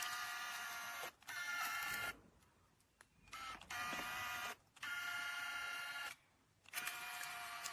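Small electric motor of a remote-control crocodile boat toy whining in short runs of about one to one and a half seconds, cutting out and starting again several times as the controls are worked, with two longer pauses.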